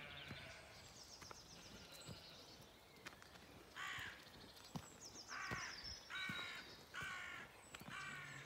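A crow cawing five times in the second half, harsh caws about half a second each, with a small songbird's high, rapid trilling song fainter in the background.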